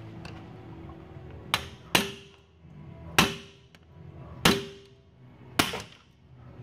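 A hammer striking a socket held on a valve spring retainer: five sharp metallic blows, roughly a second apart, each ringing briefly. The strikes knock the valve keepers loose so the spring and valve can come out of the cylinder head.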